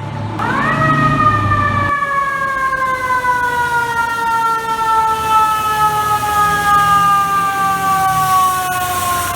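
Fire truck siren winding up sharply about half a second in, then slowly winding down in pitch, with a low engine rumble underneath.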